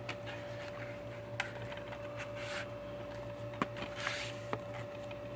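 Plastic DVD case being handled: a few light clicks and two short rustles over a steady low hum.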